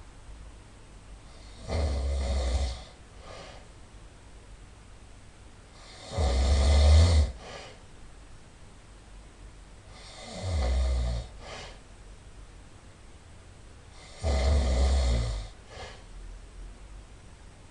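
A person snoring loudly: four harsh snores about four seconds apart, each lasting about a second, with a fainter short breath sound just after each.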